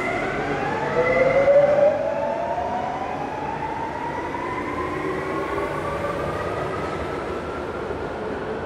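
Renfe Civia class 464 electric commuter train pulling away from the platform. Its traction motors give a whine in several tones that climbs steadily as the train gathers speed, over wheel and rail rumble, echoing in an underground station.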